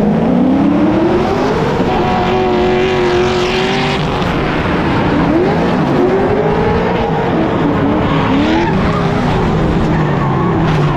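Two drift cars in tandem, engines at high revs. The note climbs steadily for the first two seconds, then rises and falls repeatedly as the cars slide through the corners, with tyres screeching over it.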